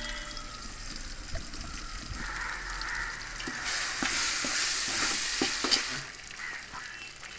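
Ginger-garlic paste frying in hot oil and onions in an aluminium pot: a sizzle that swells from about two seconds in and is loudest in the middle, with a slotted metal spoon clicking and scraping against the pot as the paste is stirred in. The sizzle dies down near the end.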